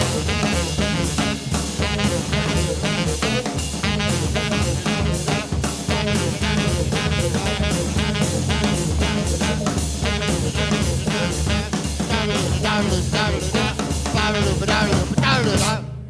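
Live jazz band playing an instrumental passage on Hammond organ, tenor saxophone and drum kit, with steady drum strokes throughout.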